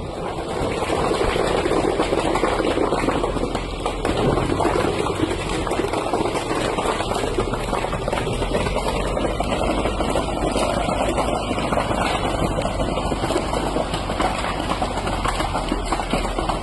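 A machine's engine running steadily under a dense, even rumble, with no break or change in pitch.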